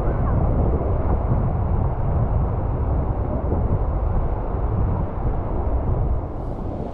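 Wind rumbling on the microphone over the wash of waves breaking and surging across a flat rock reef. The sound eases slightly near the end.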